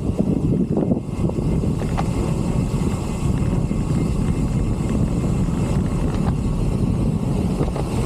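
Wind buffeting an action-camera microphone while riding a road bicycle, a steady low rumble of rushing air and road noise.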